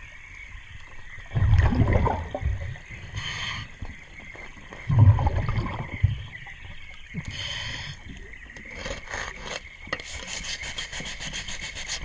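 Scuba diver breathing through a regulator underwater: exhaled bubbles rumble out about a second and a half in and again about five seconds in, between hissing inhalations, the longest near the end. Under it, hands rub and scrape fouling off a boat propeller.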